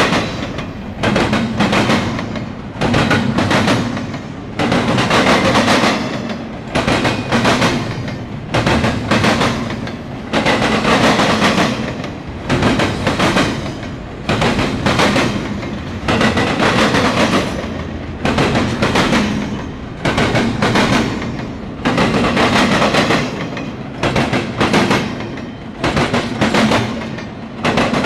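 Double-stack intermodal freight train passing, its wheels clattering over crossing rails in a rhythm of loud bangs that come in clusters every second or two as each car's trucks roll over, over a steady rolling rumble.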